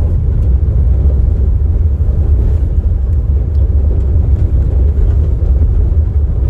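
Steady low rumble of a moving car: road and wind noise, loudest in the deep bass.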